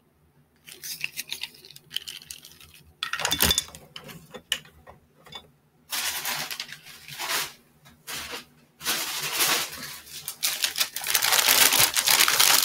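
Scattered clicks, knocks and rustles of things being handled and set down. From about nine seconds in comes a steady rustling and crinkling of a plastic bag being picked up and handled.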